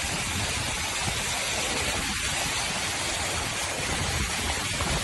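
Steady rush of fast-flowing floodwater streaming across a road, an even, unbroken noise of moving water.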